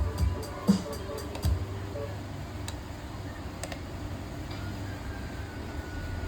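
A few sharp clicks with dull thumps in the first second and a half, typical of the footswitches of a Valeton GP200 LT multi-effects pedal being pressed, followed by a steady low hum from the guitar rig with a faint thin tone coming in near the end.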